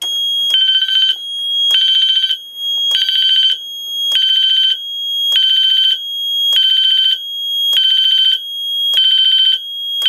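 Wheelock MT horn on its bell tone at low volume, sounding a buzzy pulsed alarm about once every 1.2 seconds over a steady high tone. The pulsing is the pre-release countdown of an Ansul Autopulse 442R agent releasing panel after its agent release pull station is pulled.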